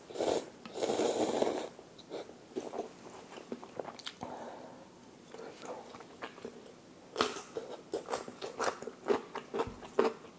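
Noodles slurped into the mouth in loud bursts, then from about seven seconds in, crisp crunching and chewing of radish kimchi (seokbakji), many short sharp crunches in quick succession.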